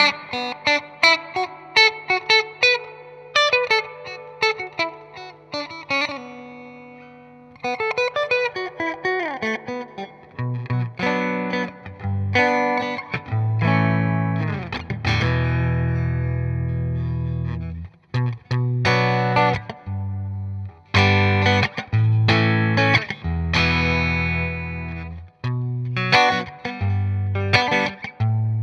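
Electric guitar played through a Fender '65 Deluxe Reverb amp. Picked single notes and arpeggios ring out at first; from about ten seconds in come louder, fuller chords with some grit, one chord held for a few seconds, then choppy rhythm chords.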